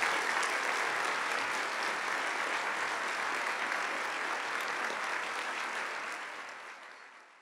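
Audience applauding: a steady clatter of many hands clapping, fading away near the end.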